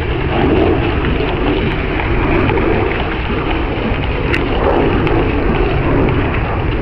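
Wind buffeting the microphone: a steady, loud rumbling rush.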